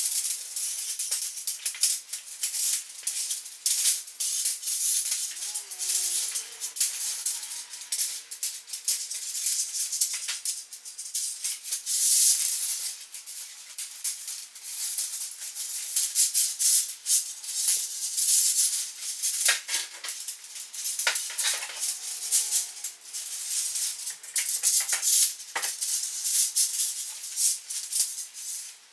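Tent fabric rustling and crinkling in irregular bursts, with light clicks and rattles of tent poles, as the poles are unfolded and fed through the sleeves of a Eureka Bon Echo Tour 600 tent.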